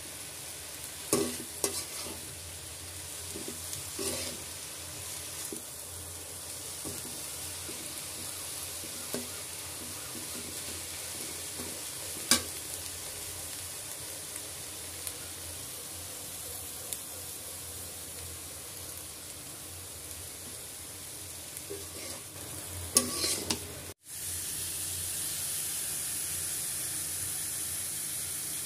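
Leafy greens and green chillies sizzling as they stir-fry in a wok, with the scrape and clack of a spatula stirring them now and then. Near the end the sound breaks off for an instant, and a steadier, hissier sizzle follows.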